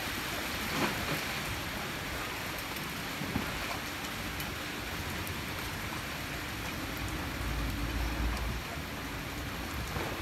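Steady hiss of heavy rain falling on the water and pier roofs, with a speedboat's engine running low underneath as the boat manoeuvres slowly. A brief low rumble comes about three-quarters of the way through.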